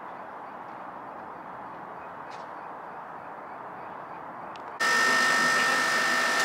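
Steady outdoor background noise with a couple of faint chirps, then about five seconds in a sudden switch to a louder, steady electric hum with several high whining tones from an automatic instant-ramen cooking machine boiling noodles in foil trays.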